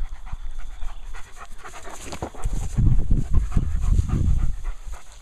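German Shepherd dog panting close by after running, growing louder from about halfway through.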